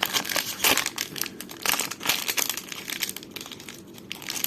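Toy blind bag's plastic packaging crinkling and crackling in irregular bursts as it is handled and pulled at to open it, easing off toward the end.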